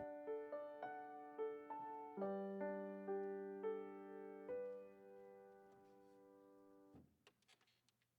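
Piano playing a slow melody of single struck notes over held chords. The last chord is held and then stops abruptly about seven seconds in, followed by a few faint clicks.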